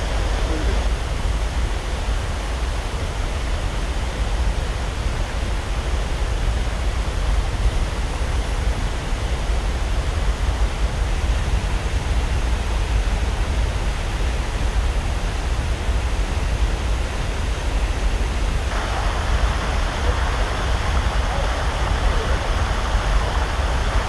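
Steady rush of a mountain stream and waterfall, with a deep rumble underneath. Near the end it suddenly turns brighter and hissier, as if closer to the water.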